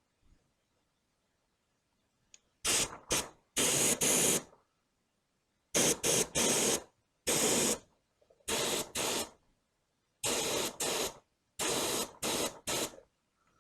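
Small touch-up spray gun fired in short trigger pulls, spraying lacquer thinner with compressed air to test its fan pattern: about a dozen brief hissing blasts, many in quick pairs and triples.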